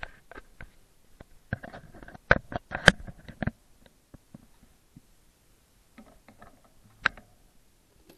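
Rapid, irregular clicks, knocks and rustles of a bicycle and its handlebar-mounted action camera being handled indoors, sped up. A dense run of knocks comes about two to three seconds in, then a lull, then a single sharp knock near the end.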